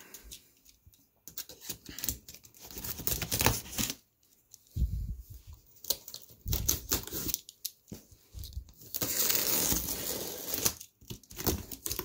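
Utility knife slitting packing tape along a cardboard box, with scraping, tearing and knocks as the cardboard is handled. About nine seconds in there is a longer tearing sound of about two seconds as the tape is ripped and the flaps pulled open.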